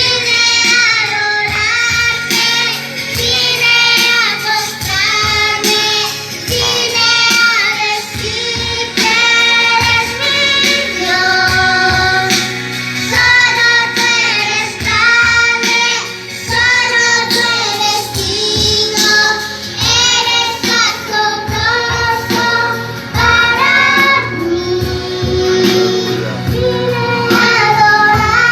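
A young girl singing a song over instrumental backing music.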